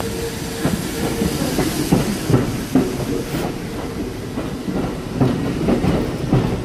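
St. Louis Car Company R42 subway train running along the station platform, its wheels clacking over the rail joints in an uneven run of knocks. A steady hum sounds in the first two seconds or so, then fades.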